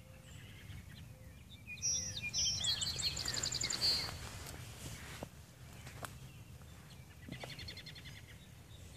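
Songbirds singing: a fast trill of quickly repeated high notes from about two to four seconds in, and a shorter trill near the end. A few soft knocks sound in between.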